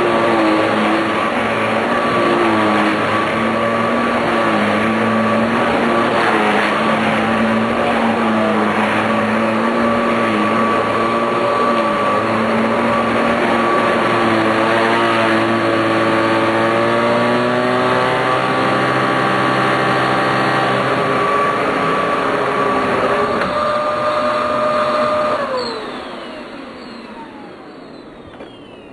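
Hoover Z400 bagless upright vacuum running with a steady motor whine, switched off about 25 seconds in, its whine falling as the motor spins down. The owner takes its motor to be brushless.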